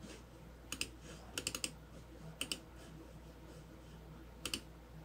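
Light, sharp taps of fingertips on an iPhone touchscreen, coming in small clusters of two or three about four times.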